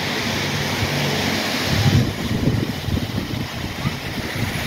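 Wind buffeting the microphone over steady traffic noise and tyres on a wet road, as a single-deck bus approaches.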